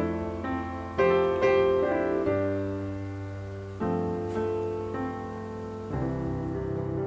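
Gentle background piano music, notes struck about once a second and left to ring.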